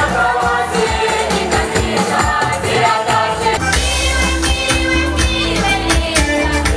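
Music: a group of voices singing together over drums and a steady bass.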